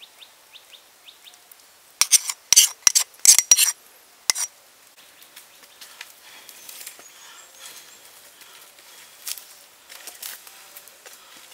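A burst of loud, sharp clacks and knocks about two seconds in, then a wood and bamboo campfire crackling faintly, with a few louder pops.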